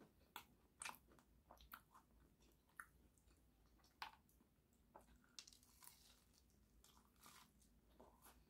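Faint, close-miked chewing and biting of a toasted, Parmesan-crusted grilled-cheese melt sandwich: scattered soft crunches and wet mouth clicks, with a sharper crunch about four seconds in.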